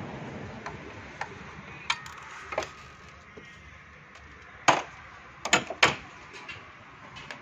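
Tools and metal engine parts being handled by hand: a few sharp clicks and knocks, two lighter ones in the first half, then three loud knocks in quick succession a little past the middle.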